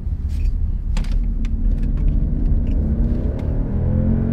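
Maybach's twin-turbo V12 heard from inside the cabin, accelerating at full throttle from a rolling start over a low road rumble. From about two seconds in the engine note climbs slowly in pitch and grows louder. The run is a test after a worn accelerator pedal was replaced, and it goes through without the fault showing.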